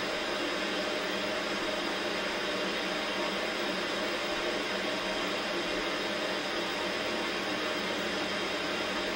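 Static hiss of an old CRT television showing snow on an empty channel: a steady, unbroken white-noise hiss with little bass.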